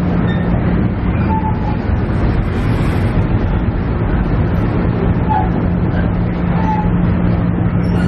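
Inside a KiHa E130 diesel railcar: the engine runs with a steady low hum over a constant rushing noise, with a few faint short higher tones.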